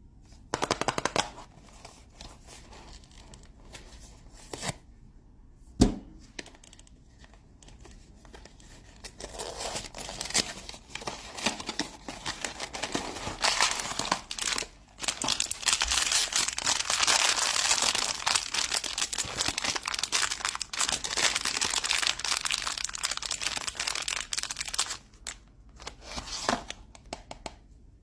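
Blind-box toy packaging being torn open and crinkled by hand: scattered rustles, a click and a sharp knock, then a long spell of steady tearing and crinkling, at its densest in the second half.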